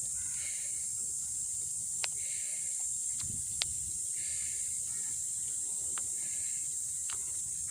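Steady high-pitched hiss of outdoor ambience, with a few sharp clicks scattered through it and faint short chirps.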